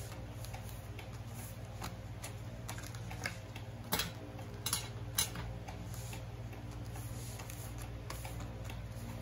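Sheet of paper being folded and creased by hand, with soft rustles and a few sharp clicks and taps in the middle, over a steady low hum.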